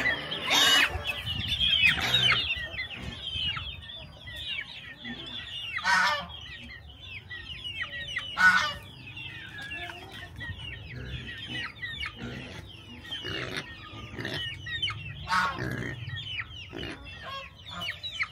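A flock of chickens clucking, with several louder squawks or calls scattered through, over steady high-pitched chirping.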